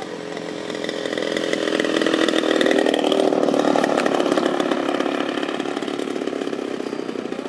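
Radio-controlled P-51 Mustang model's engine buzzing at low throttle through the landing and rollout, louder two to four seconds in, then easing off.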